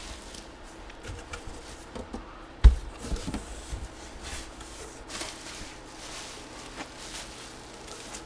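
Handling noises on a tabletop: rustling and light knocks, with one heavy thump a little under three seconds in and a few smaller knocks just after it, as of boxes or a helmet being moved and set down.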